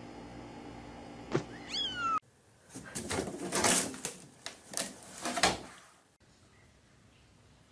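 A kitten gives a single falling meow. Then a cat scuffles and knocks about in a laundry hamper, and the lid comes down with a knock about five and a half seconds in.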